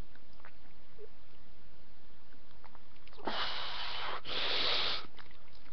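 A person sniffing hard: two long, noisy breaths in quick succession about three seconds in, through a nose running from the burn of a habanero pepper.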